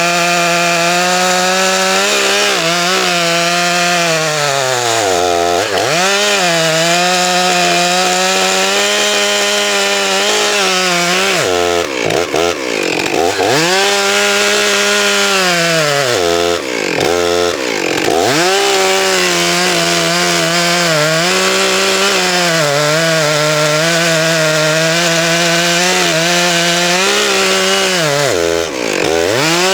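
Stihl 661 Magnum two-stroke chainsaw cutting through a large oak log, running at high revs with the engine speed dipping and recovering about four times.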